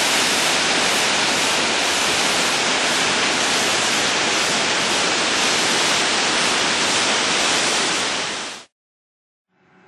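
Rushing water of a partly frozen, snow-covered creek: a steady, even rush that fades out quickly about eight and a half seconds in, followed by silence.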